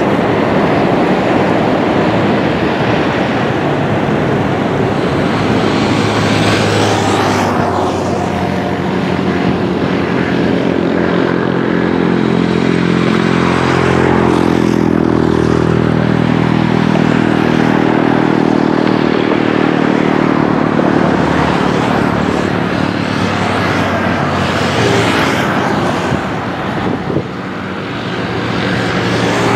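Boeing 737-700's twin CFM56-7B turbofan engines at takeoff thrust: a loud, steady jet roar as the airliner rolls down the runway and climbs away, with a low droning hum running through the middle of it.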